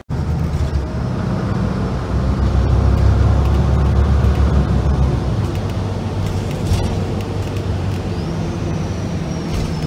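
Engine and road noise of a moving road vehicle heard from inside its cabin, a deep steady rumble that grows over the first few seconds and then holds. A faint thin high whine comes in near the end.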